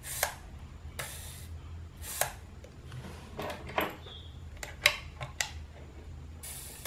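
Handling of a partly disassembled Canon Demi EE17 half-frame camera: a scattered series of small sharp clicks from its metal body and mechanism, with short scraping rubs about a second in and near the end.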